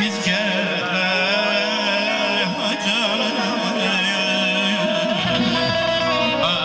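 A male mugham singer sings a heavily ornamented, trilling vocal line into a microphone through a PA system, over a steady instrumental accompaniment. A deeper bass layer comes in about five seconds in.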